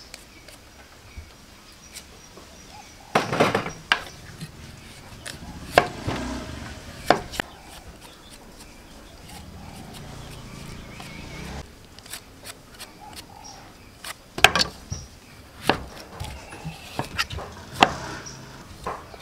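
A kitchen knife peeling sweet potato and taro root by hand: irregular sharp scrapes and clicks of the blade, some in quick clusters, with knocks on a wooden chopping board.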